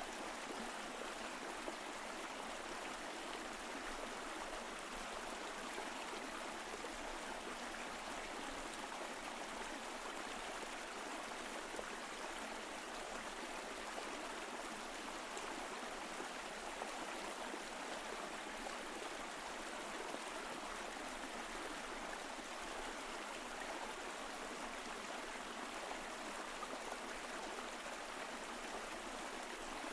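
Mountain stream flowing over rocks: a steady, even rush of water with a faint gurgle, unchanging throughout.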